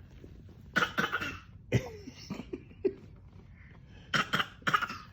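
Short, deliberate pretend coughs: a couple about a second in, small throat sounds after them, and another quick pair near the end.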